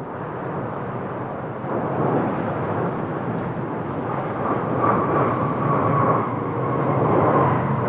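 Jet noise of a Boeing 787-9 coming in to land, a steady rushing engine sound that slowly grows louder, with a faint whine joining about five seconds in.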